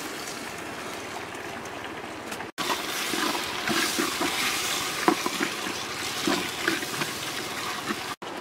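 Sliced squid, tomato and peppers sizzling in a hot pot of sauce and being stirred with a wooden spoon: a steady sizzle, louder after an edit about two and a half seconds in, with many small scrapes and knocks of the spoon.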